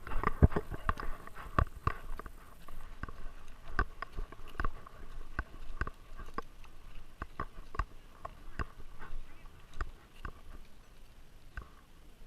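Repeated knocks and rattles of a GoPro camera in its housing strapped to a Great Dane, jolted as the dog moves. The knocks come about one or two a second, irregular and thickest near the start.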